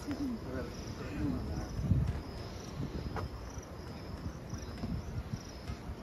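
Insect, cricket-like, chirping in short high pulses that repeat a few times a second, over low thuds of walking and handling, the loudest about two seconds in.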